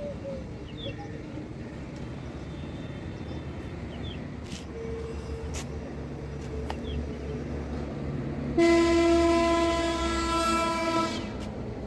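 Steady low rumble of outside traffic, then, about two-thirds of the way in, a loud horn sounds once at a single steady pitch for about two and a half seconds.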